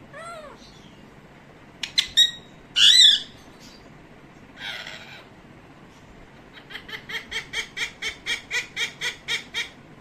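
Pet parakeet calling: a short call, then sharp squawks and one loud harsh screech about three seconds in. Near the end comes a quick, even run of about fourteen short 'ha' notes, about five a second: the parrot's mimicked laugh.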